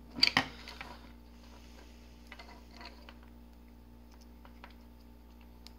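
Small sharp clicks and taps of a screwdriver and plastic connector being handled while wires go into the screw terminals of a solenoid coil connector: a quick cluster of clicks just after the start, then a few lighter ticks around the middle and near the end.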